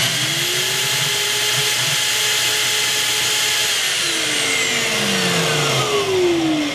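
A Festool plunge-cut circular saw spins up to a high whine, running free without cutting, while a Festool CleanTec dust extractor hosed to it runs with a steady suction rush. About four seconds in the saw is switched off and its pitch falls away. The extractor keeps running a couple of seconds longer, then winds down in a long falling tone.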